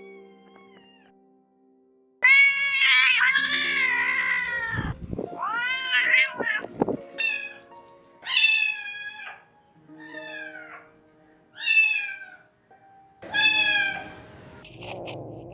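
Domestic cat meowing repeatedly: a long, loud, wavering meow, then about half a dozen shorter meows, each rising and falling in pitch.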